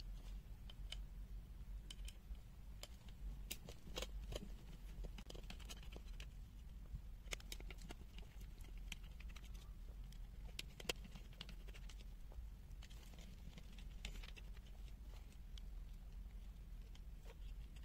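Faint, irregular clicks and scratches of a small screwdriver working the screws out of a multimeter's circuit board and the board and plastic case being handled, with a sharper click about eleven seconds in, over a steady low hum.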